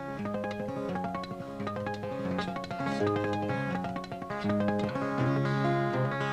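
Solo acoustic guitar played live, with individually picked notes over held bass notes. It grows gradually louder toward the end.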